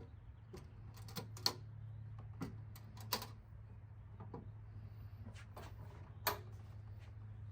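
Scattered light clicks and knocks at irregular intervals over a steady low hum.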